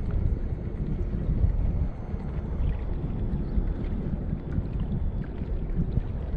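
Wind rumbling and buffeting on an action camera's microphone as a kayak moves over choppy water, with faint small splashes of water lapping at the hull.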